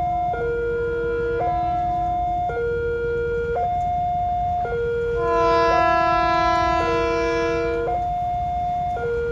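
Railway level-crossing warning siren sounding a two-tone hi-lo alarm, switching pitch about once a second. Midway a louder train horn blows over it for about three seconds.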